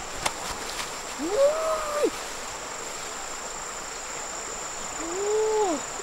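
Steady high-pitched insect drone over the rush of a river, with two brief wordless voice sounds, each rising then falling: one about a second in and one near the end.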